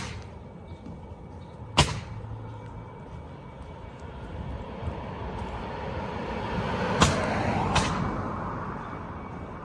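A vehicle passes, its sound swelling to a peak about seven seconds in and then fading. Sharp knocks come at the start, just under two seconds in, and twice more near the peak.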